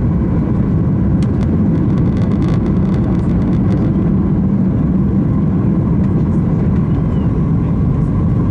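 Steady low roar of an Airbus A310-300's jet engines and rushing air, heard inside the passenger cabin, with a faint steady hum above it.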